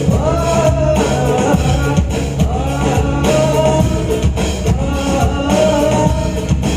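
Music: a song with a singing voice carrying a gliding melody over drums, bass and guitar, played loud and steady.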